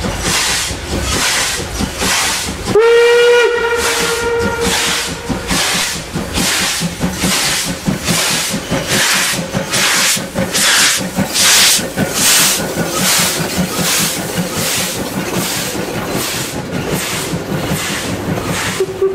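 Class 52 steam locomotive 52 8134 working a passenger train, its exhaust beats coming in a slow, even rhythm of about one and a half a second. About three seconds in it gives one blast on its steam whistle lasting a second and a half or so. The beats are loudest as the engine passes near the middle, and the coaches roll by near the end.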